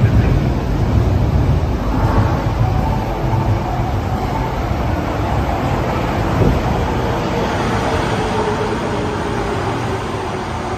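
Osaka Metro 23 series subway train pulling in: a loud low rumble of wheels on rail, with an electric motor whine that comes in about two seconds in and drops in pitch as the train slows. A single knock about six seconds in.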